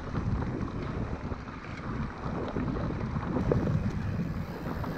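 Wind buffeting the microphone while riding a mountain bike over a rough dirt track, with the tyres rumbling on the loose surface.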